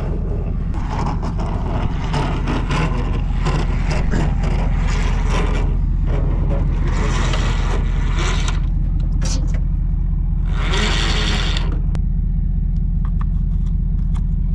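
A vehicle engine idling steadily, with scattered clicks and scraping from a trailer winch and its cable being handled. Two short bursts of hiss come around the middle.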